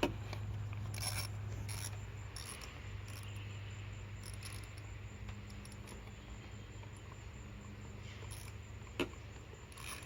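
Faint, scattered metallic clicks and clinks of hand tools and parts while ignition coil packs are fastened down on a V8 engine, over a steady low hum.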